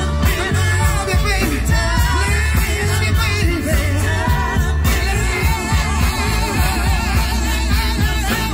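Live horn band playing an up-tempo song, several vocalists singing together over keyboard, saxophones, bass and drums, loud and amplified.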